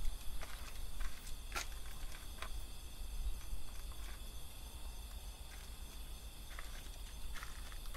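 A dog eating leftover fried rice from a dish: scattered small clicks and ticks of mouth and food against the dish, over a steady low hum.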